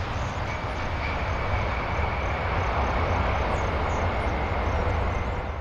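Four-engine Boeing 747 jet airliner rolling out just after touchdown: a steady roar of jet engines with a deep rumble and a thin, high, steady whine.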